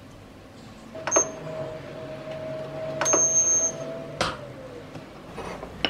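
An electric oven's control panel beeps with a click, then the oven runs with a steady hum; it beeps again about two seconds later. About four seconds in there is a click, and the hum slides down in pitch as the motor winds down and stops.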